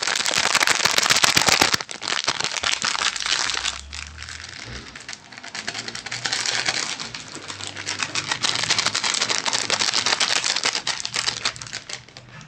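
Close-up crinkling and crumpling of a plastic drink sachet being handled in the hands, loudest in the first two seconds and then softer and patchier.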